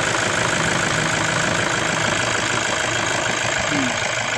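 Toyota Hilux engine idling steadily, running again after the electrical fault was fixed.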